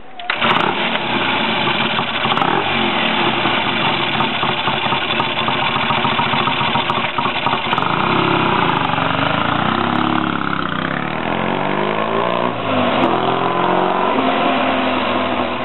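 Triton café racer's Triumph parallel-twin engine kick-started, catching at once and running, then revved in a few rising and falling sweeps as the bike rides off.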